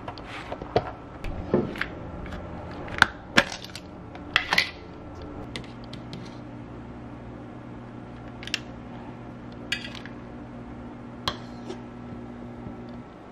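Kitchen handling sounds while a plate of burrata and tomatoes is put together: sharp clicks and clacks of a plastic tomato container and a plastic tub, metal tongs and dishes, the loudest cluster in the first half. A steady low hum comes in about five seconds in.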